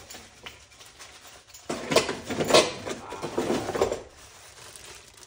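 Clattering and rustling of objects being handled in a small room, in a few bursts with sharp clicks, busiest in the middle.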